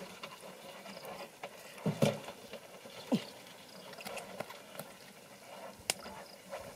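Small wet splashes and patter of fish and hands in shallow muddy water as stranded fish are grabbed from the mud. The loudest splashes come about two and three seconds in, and there is a sharp click near the end.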